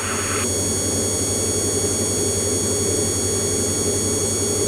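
Steady cabin drone of a Diamond single-engine light aircraft in flight, its piston engine and propeller running at a constant setting, with a steady high whine over the low hum.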